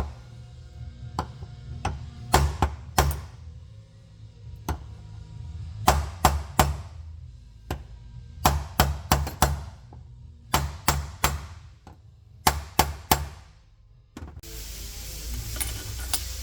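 Background music with a low bass line, cut through by sharp knocking hits in uneven clusters. A steady hiss comes in near the end.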